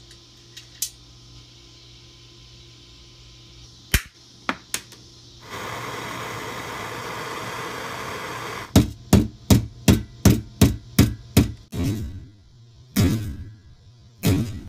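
A small hand torch's flame hisses steadily for about three seconds. Then a hammer strikes a steel rivet on the popper lid about ten times in quick succession, followed by a few slower, heavier blows, peening the rivet that holds the lid's handle.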